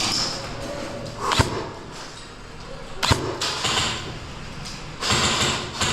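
Two sharp single shots from an airsoft rifle, about a second and a half apart, each a short crack.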